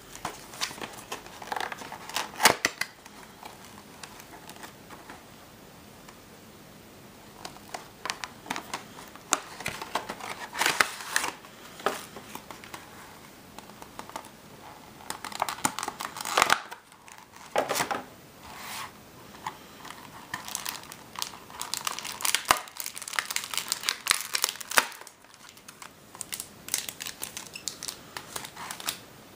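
Crinkling and rustling of plastic packaging: a clear plastic tray and foil trading-card booster packs being handled and lifted out, in irregular bursts with a quieter stretch around the fifth to seventh second.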